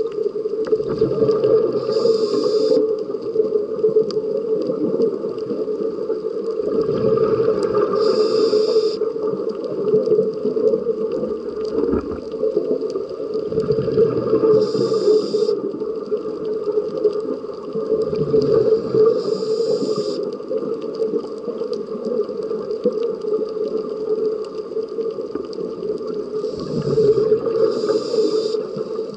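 Scuba regulator breathing heard underwater through a camera housing: a short rumble of exhaled bubbles and a hiss of inhalation come back about every six seconds, over a steady low drone.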